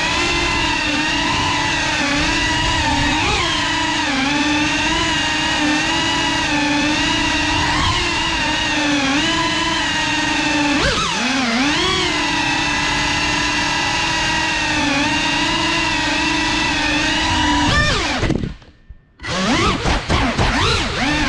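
Whine of a ducted cinewhoop FPV drone's motors (Cinelog 35), steady and wavering in pitch with the throttle, with a quick dip and climb about 11 seconds in. Near the end the whine falls sharply and cuts out almost to silence for about a second, then the motors spin back up with a rising whine.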